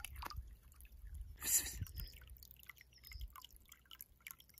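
Water dripping and trickling as a bottle is filled in a small irrigation channel, with one louder rush of water about a second and a half in.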